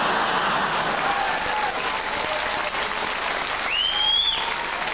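Theatre audience applauding after a punchline, with someone in the crowd giving a rising whistle about four seconds in.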